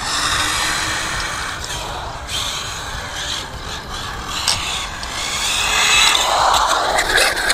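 ZD Racing 08425 1/8-scale brushless RC buggy running on asphalt through a right-left turn and braking. Its motor and drivetrain give a high whine over tyre noise, louder about six seconds in.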